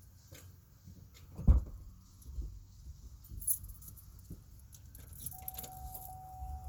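Truck keys jangling with scattered clicks and knocks, and one sharp knock about one and a half seconds in. A steady electronic tone starts about five seconds in.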